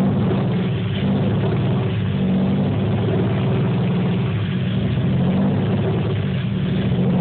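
Car engine running unevenly with a misfire, held on a little throttle, its pitch wavering slightly up and down. The misfire is random across cylinders (code P0300), with black, gas-smelling spark plugs pointing to it running rich.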